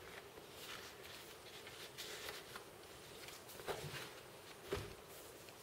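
Faint handling noise: light rustling and a few soft clicks as a canvas on its stretcher frame and canvas-stretching pliers are moved about, with one soft knock near the end.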